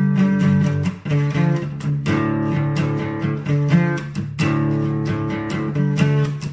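Music: a guitar-driven track with quick plucked and strummed guitar notes over a steady low line.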